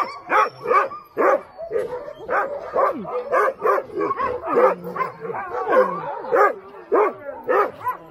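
Several Alaskan husky sled dogs barking and yipping over one another in a continuous chorus of short calls, some sliding down in pitch into whines.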